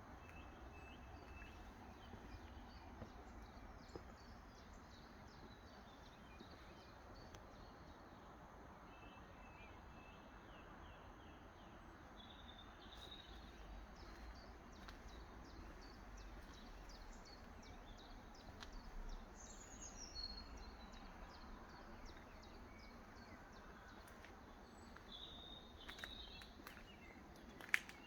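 Faint outdoor ambience: a low, steady background rumble with scattered small bird chirps and calls, and one sharp click near the end.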